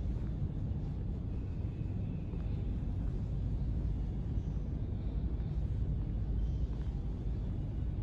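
Steady low rumble of background noise in an underground metro station hall, even throughout, with no voices or sirens.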